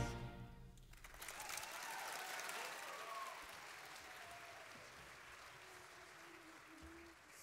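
Audience applauding, swelling about a second in and then slowly dying away, with a few voices calling out among the clapping early in the applause.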